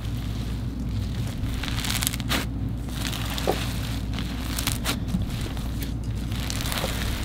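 Foam-bead slime (floam) being stretched, pulled apart and squeezed by hand, giving a run of soft crackles and rustling from the packed polystyrene beads. With so many beads mixed in it is not really crunchy but drizzly, like cloud cream.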